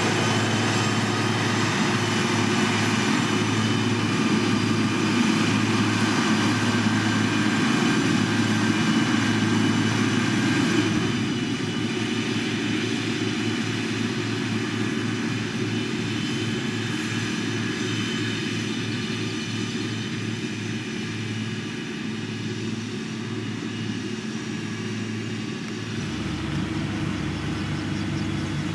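Heavy road-construction machine's diesel engine running steadily. It drops a little in level about eleven seconds in and shifts its low tone near the end.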